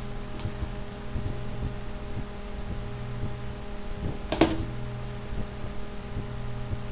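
Steady electrical hum, with a single sharp click about four seconds in.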